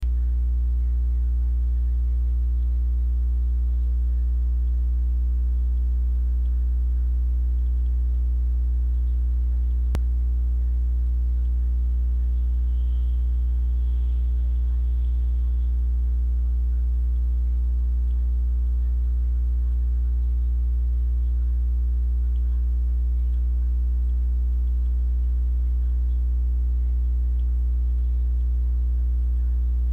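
Steady electrical mains hum with a stack of overtones, unchanging throughout; a single sharp click about ten seconds in.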